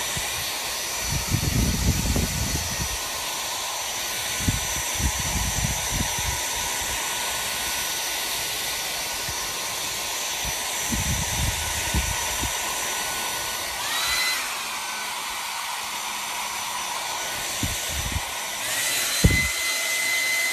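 Hand-held hair dryer blowing steadily, a rushing hiss with a thin motor whine. The whine shifts up in pitch briefly about 14 seconds in and again near the end, and low buffeting thumps come and go throughout.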